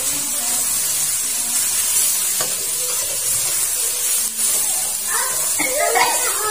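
Genjer (yellow velvetleaf) greens stir-frying in a hot wok: a steady sizzle, with a few light scrapes and taps of a metal spatula against the pan as they are turned.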